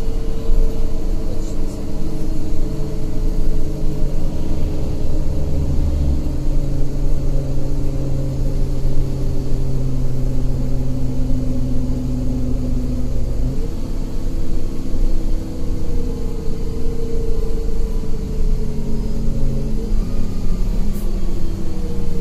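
City bus engine and road noise heard from inside the passenger cabin while under way: a steady low drone. The engine note changes abruptly about halfway through.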